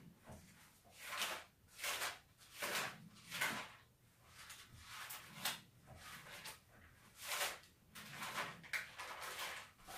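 Pages of a Bible being leafed through: a series of short, soft papery rustles, roughly one a second.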